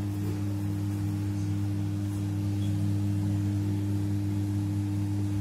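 Steady low electrical hum made of several droning tones that do not change.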